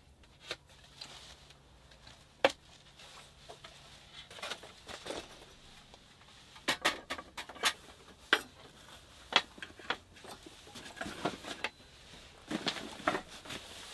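Irregular clicks, taps and rustles of camping gear being handled and set out, with a sharper knock about two and a half seconds in and a busier run of clatter in the middle.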